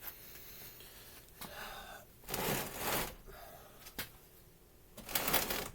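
A person breathing out hard twice, with a faint click between the breaths.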